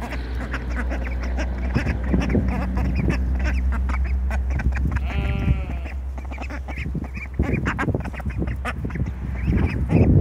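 Young ducklings calling with many short peeps and quacks, with one longer, falling call about five seconds in. A steady low hum runs underneath.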